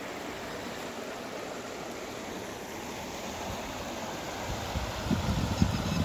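Shallow, muddy river water rushing steadily over stones. From about four and a half seconds in, wind buffets the microphone in low, uneven gusts.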